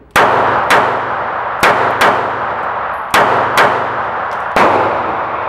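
Taurus PT738 TCP .380 ACP pocket pistol firing seven shots of Tula ammunition, loosely in pairs about half a second apart, with a longer gap before the last. Each shot rings out in a long echo off the walls of an indoor range.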